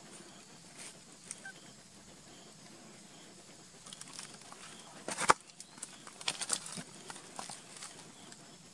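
Infant macaque giving short, high-pitched distress cries in bursts, most of them in the second half. A sharp knock about five seconds in is the loudest sound.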